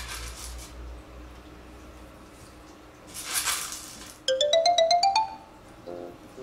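A short whoosh, then a quick run of bell-like chime notes climbing in pitch, about ten a second, like a ringtone jingle added as an editing sound effect. Light background music with repeated notes starts near the end.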